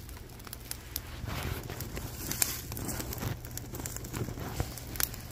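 Small fire of cardboard and wood crackling, with irregular sharp pops and rustling as it is fed more sticks and paper.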